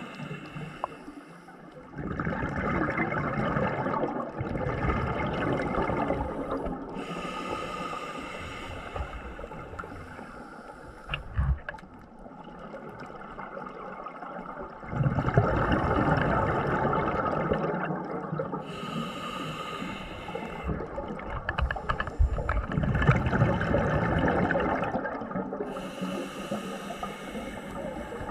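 Scuba diver breathing through a regulator underwater: hissing inhalations alternate with longer, louder rushes of exhaled bubbles, in slow breath cycles.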